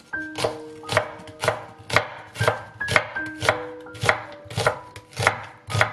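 Chef's knife slicing an onion into thin strips on a wooden cutting board: steady, even chops about two a second, each a sharp knock of the blade on the board. Soft background music underneath.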